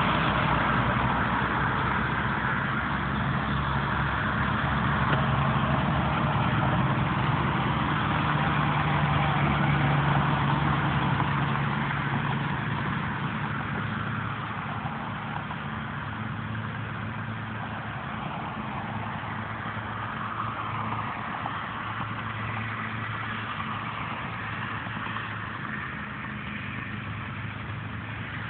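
Semi-truck diesel engine running, a steady low drone that eases off gradually after about twelve seconds.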